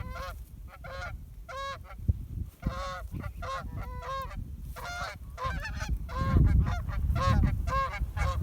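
Canada geese honking: quick, repeated two-note honks at two or three a second. A low rumble builds underneath near the end.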